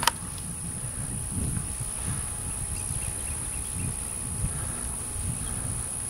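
Faint buzzing of honey bees flying at a wild hive's entrance in a tree cavity, under gusts of wind on the microphone. A sharp click comes right at the start.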